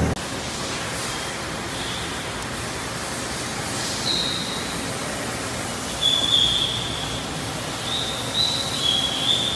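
Mori Seiki ZT1500YB CNC lathe machining behind its closed door: a steady hiss with short high-pitched squeals now and then, longer and more frequent from about six seconds in.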